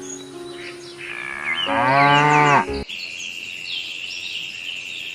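A cow mooing once, a loud call about a second long with a bending pitch, roughly two seconds in. After a sudden cut near three seconds, birds chirp over a steady high tone.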